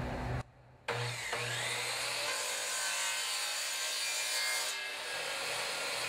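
Craftsman power saw switched on: a thump as the motor starts about a second in, then its whine rises over a second or so and settles into a steady high-pitched run.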